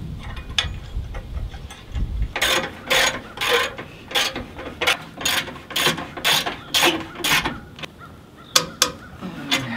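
A run of sharp metal ratcheting clicks, two to three a second, starting about two seconds in and stopping near the end, from work on a winch while its fairlead is being fitted.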